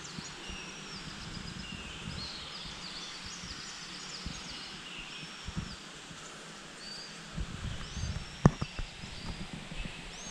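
Small birds chirping and whistling in short repeated calls over a steady outdoor hiss, with a few low thumps and a sharp click in the second half.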